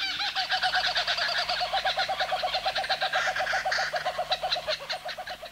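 Laughing kookaburra calling: a fast, even run of repeated hooting notes that stops just before the end.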